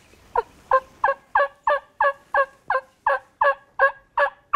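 Turkey call giving a long, evenly paced series of hen yelps, about a dozen notes at roughly three a second, made by a hunter calling to a distant gobbler.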